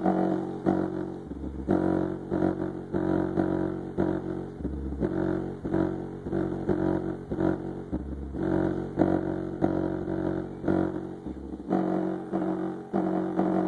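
Bass-heavy demo music played loud through a custom 15-inch 4000 W subwoofer: a steady beat with a long, deep bass note coming in about every three seconds.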